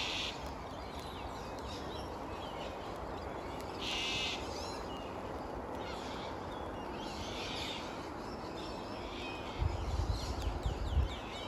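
Wild birds calling from the trees: short calls right at the start, about four seconds in and around seven seconds in, with faint chirps between, over a steady background hiss. Near the end comes a low rumbling for about a second and a half.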